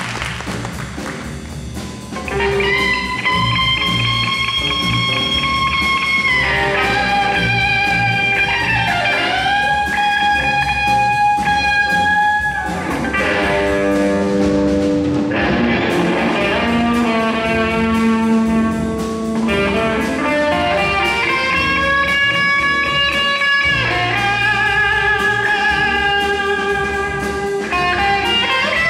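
Electric guitar solo of long sustained notes, several bent up or sliding down in pitch, over the jazz band's rhythm section in a 70s-style jazz-rock tune.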